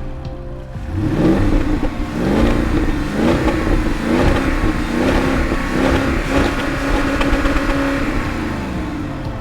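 Porsche Cayenne 4.8-litre V8 engine revving. The pitch climbs about a second in, then rises and dips in a series of short surges, holds fairly steady, and falls away near the end.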